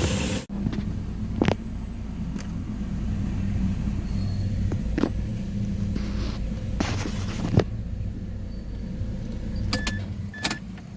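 Mazda 3 engine idling steadily with a low hum, running again after a failed fuel pump and a leaking injector were replaced. A few short clicks and knocks sound over it.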